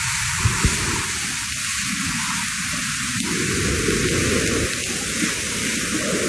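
Steady hiss of heavy rain, with two short low knocks under a second in.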